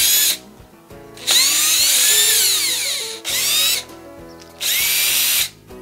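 Ridgid cordless drill/driver running in repeated bursts as it backs screws out of a ceiling fan's motor-housing brackets, its motor whine rising and falling with the trigger. The longest burst lasts about two seconds, near the middle.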